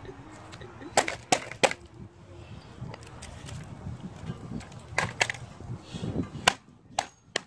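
Claw hammer hitting an old laptop: three sharp blows in quick succession about a second in, then four more spaced strikes and cracks in the second half as the casing is broken open.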